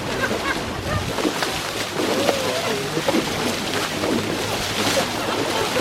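Indistinct voices over a steady rushing background noise.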